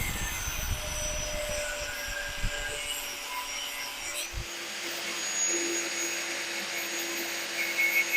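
Power cutting tool running steadily as it cuts through a small metal mounting piece, a continuous hiss with faint whining tones.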